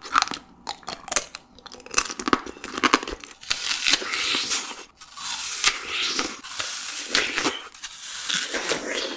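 Close-up eating of cut fruit by hand: a run of sharp wet clicks, then a dense crackling, tearing rustle from about three and a half seconds in as melon flesh is pulled from its rind and chewed.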